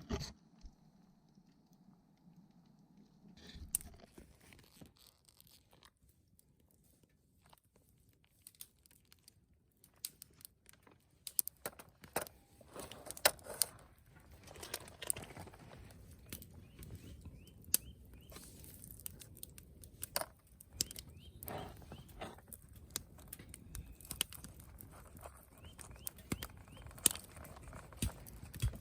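Rustling and handling noises with scattered sharp clicks and knocks, sparse at first and busier from about ten seconds in.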